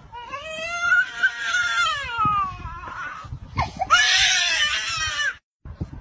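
A toddler crying and screaming in two long, high-pitched wails that rise and fall in pitch, the second starting about three and a half seconds in. The sound cuts out briefly near the end.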